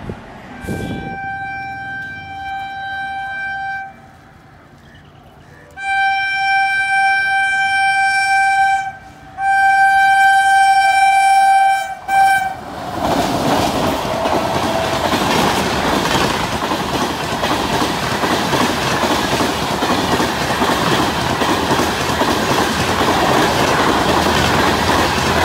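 Train horn sounding three long blasts and a short one, then an express train passing close at speed with continuous loud wheel-on-rail rushing and clatter of its coaches.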